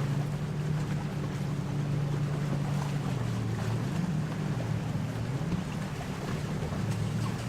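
Motorboat engines droning steadily as a boat passes on the water, the engine note wavering slightly in pitch. Wind rushes on the microphone.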